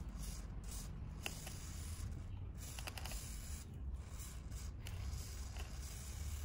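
Aerosol chain lube hissing from a spray can onto a motorcycle drive chain, in sprays broken by several brief pauses, over a steady low hum.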